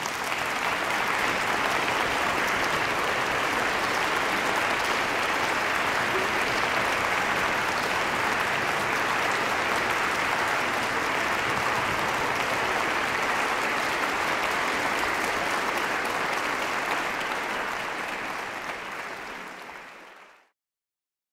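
Concert audience applauding: a dense, steady clapping that fades over the last few seconds and then cuts off abruptly.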